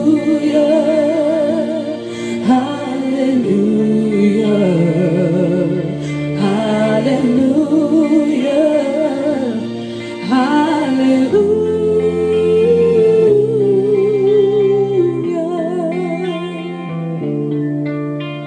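A woman singing long held notes with wide vibrato into a handheld microphone over a karaoke backing track of sustained chords. The voice fades out in the last few seconds, leaving the backing.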